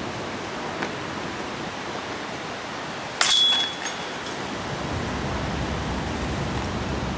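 A putted disc striking a disc golf basket about three seconds in: a sudden metallic clash with a short ring as it hits the chains and drops into the basket, over a steady background hiss.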